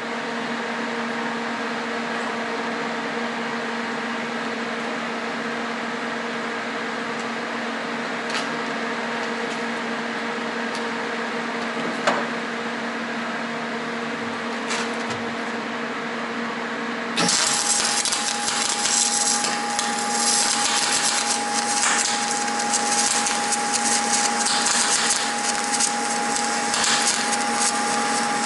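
A steady low hum, then about 17 seconds in a MIG welding arc strikes and runs on with a continuous loud crackle and hiss, as a milled-out groove in a steel part is welded up.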